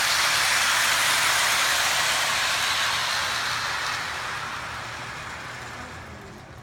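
Lionel O-gauge toy train running on its track, a steady rushing rattle that fades away over the last few seconds as the train moves off.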